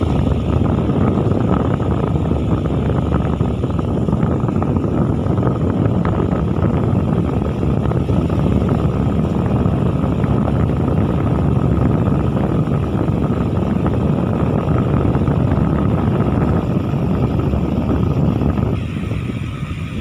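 Battery-powered toy airplane running with its propellers spinning, giving a steady, engine-like noise with a faint whine. About a second before the end the sound drops and changes character as a second toy plane takes over.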